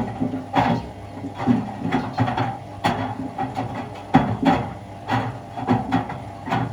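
A 6-litre plastic water bottle tumbling in the drum of a Miele washing machine, knocking against the drum in irregular thuds about two a second.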